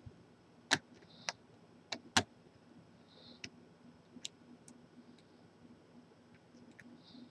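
Lock picking on a padlock: scattered, irregular sharp metal clicks from the pick and pins, the loudest two within the first two and a half seconds, with a few faint scratchy rustles of the tools.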